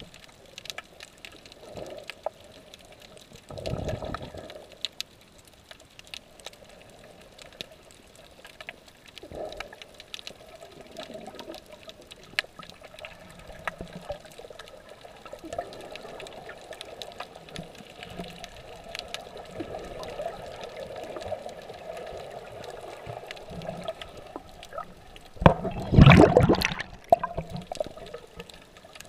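Muffled underwater water noise picked up by a camera held below the surface while snorkelling, with scattered faint clicks throughout. There are two louder rushes of water, a short one a few seconds in and a stronger one near the end.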